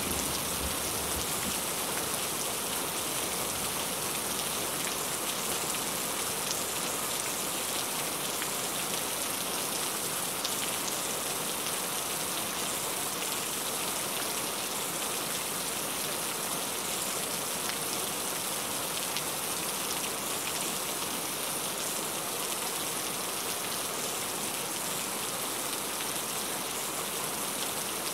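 Heavy rain falling steadily: an even hiss, strongest in the high end, with individual drops ticking through it.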